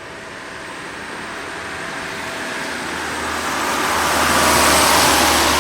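A rushing engine roar of something approaching, swelling steadily louder and cutting off abruptly at its peak.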